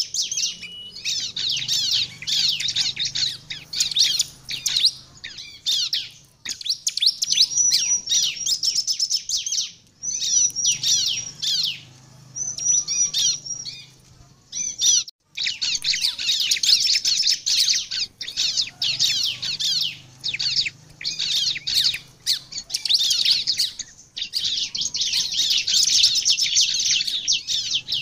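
Bar-winged prinia (ciblek) singing: long runs of rapid, high, sharp chirps and trills, broken by short pauses about six, ten and fifteen seconds in.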